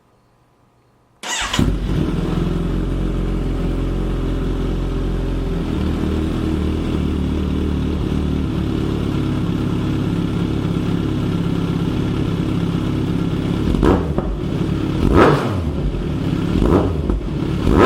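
A 2018 Kawasaki Ninja 1000's inline-four fires up about a second in and idles through a Black Widow 4-2-1 exhaust with the baffle removed, really loud. It gets a few quick blips of the throttle near the end.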